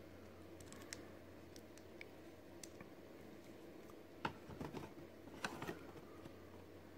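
Faint clicks and taps of a plastic action figure being handled and posed, with a few louder clicks between about four and six seconds in, over a low steady hum.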